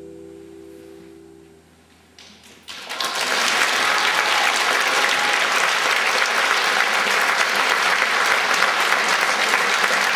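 A plucked-string orchestra's final held chord fades away, and after a short hush the audience starts applauding about two and a half seconds in, loud and steady.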